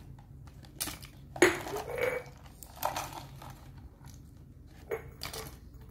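Pieces of ice clicking and clattering against a plastic tub and bag as they are handled by hand, in a handful of separate clatters, the loudest about one and a half seconds in.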